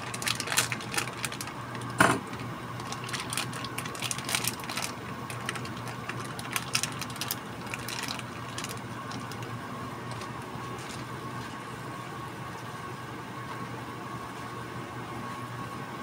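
Tocino simmering in water in a frying pan, with light crackling and popping through the first half and one louder knock about two seconds in. It then settles to a steady hiss with a faint hum.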